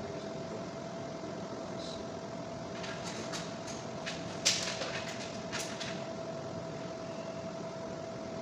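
Steady mechanical hum, with a handful of clicks and scrapes from bundled electrical wires being handled and pulled about three to six seconds in. The loudest is a sharp knock near the middle.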